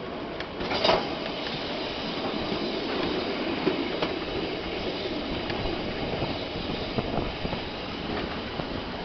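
Heritage railway carriage running along the track: a steady rumble of wheels on rail with scattered clicks and knocks, the sharpest about a second in.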